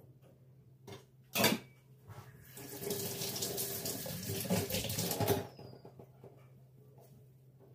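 A sharp knock, then a kitchen tap running into the sink for about three seconds before it is shut off suddenly.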